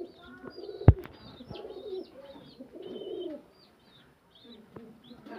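Pigeons cooing, with short high chirps over the coos and one sharp knock about a second in.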